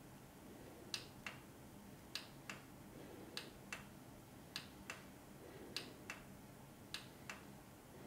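Lighting mode button on a Lian Li O11 Dynamic EVO PC case pressed six times, each press a pair of light clicks about a third of a second apart, about once every 1.2 seconds, cycling through the case's lighting effects.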